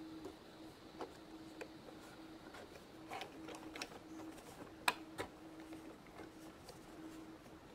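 Faint, scattered clicks and taps of plastic toy pieces and a Play-Doh mold being handled, with one sharper tap about five seconds in. A faint steady hum runs underneath.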